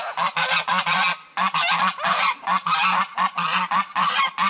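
A pair of domestic geese honking in a fast run of short, loud honks, with a brief pause about a second in. It is the threat honking of a goose pair facing a person close by.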